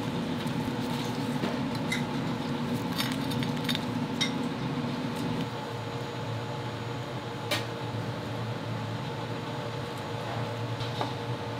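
Light clinks and taps of dishes and utensils in a commercial kitchen, scattered over a steady hum.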